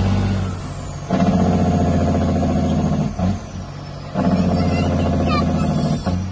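Heavy truck's diesel engine pulling hard, heard inside the cab. Three times it drops off for about a second and then picks up again as the driver shifts gears on the manual gearbox.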